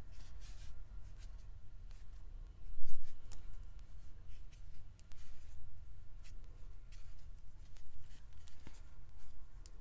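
Copic alcohol marker nib drawing thin strokes on paper: many brief strokes in quick succession, with one louder rub about three seconds in.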